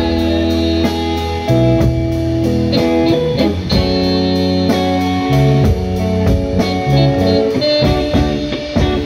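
Live band playing an instrumental passage without vocals: electric guitar playing held notes and chords over bass guitar, with drums keeping a steady beat on the cymbals.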